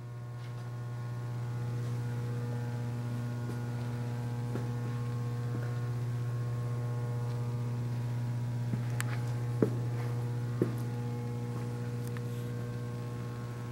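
Steady electrical hum, even throughout, with a few faint light ticks about two-thirds of the way through.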